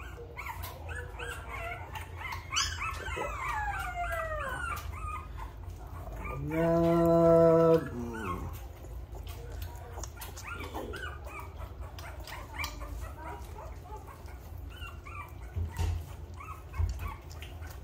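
Three-week-old American bully puppy whining and whimpering in quick falling squeals while being hand-fed raw pork meatball. About six and a half seconds in comes the loudest sound, a steady low held tone lasting over a second.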